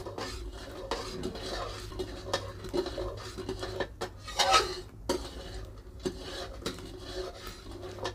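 Flat metal spatula scraping and knocking against the sides of a steel kadhai as it stirs boiling sugar syrup, in irregular strokes, with one brief, louder squeaky scrape about halfway through.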